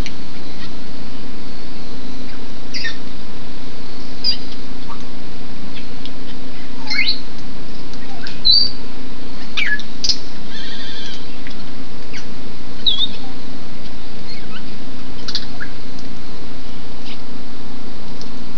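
African grey parrots giving scattered short whistles, chirps and squawks over the steady hiss of rain falling on the aviary.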